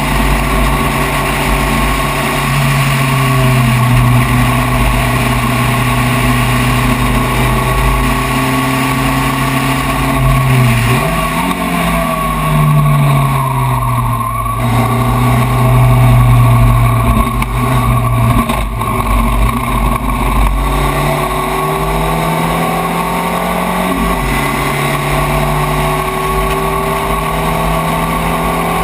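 Spec Racer Ford race car engine at racing speed, heard from the open cockpit with wind and road noise. The engine note holds steady for long stretches and dips and climbs in pitch several times with lifts, throttle and gear changes.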